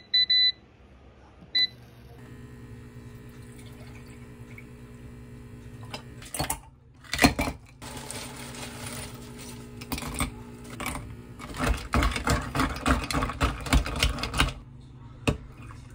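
Happycall air fryer's touch panel beeps a few times as its timer is set, then the air fryer's fan starts and runs with a steady hum. From about six seconds in, a plastic bag of broken dalgona (honeycomb toffee) crinkles and rustles loudly as the pieces are shaken out into a glass of milk.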